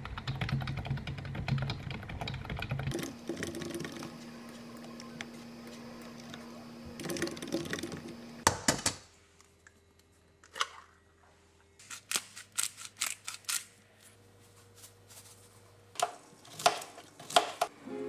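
Rapid typing on a computer keyboard for the first few seconds. Then a steady low hum, followed by scattered clicks and knocks of kitchen work at a frying pan and counter.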